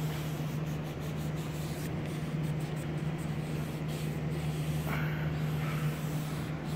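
Alcohol prep pad being rubbed back and forth along a truck's door frame and window channel, a soft irregular wiping, over a steady low hum.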